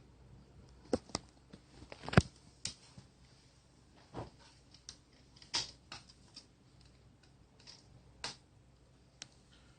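Scattered small clicks and taps of a Phillips screwdriver and screw while a laptop screen's mounting screw is put in and driven. The sharpest click comes about two seconds in.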